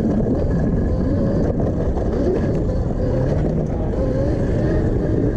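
Electric-converted Honda CRF150R dirt bike riding on a dirt trail, heard from an action camera on the bike: a steady low rumble of tyres, drivetrain and wind, with the motor and chain whine rising and falling in pitch as the throttle changes.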